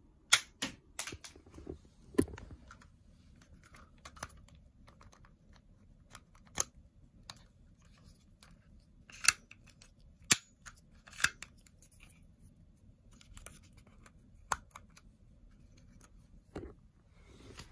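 Sharp plastic clicks and clacks from a toy crossbow being handled up close, its plastic parts knocking and its mechanism clicking. A quick run of clicks comes near the start, then single clicks every second or two.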